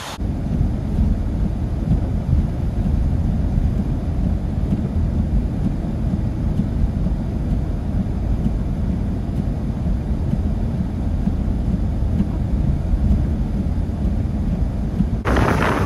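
Wind buffeting the microphone in a snowstorm, a steady low rumble; about a second before the end it cuts abruptly to a brighter rushing hiss.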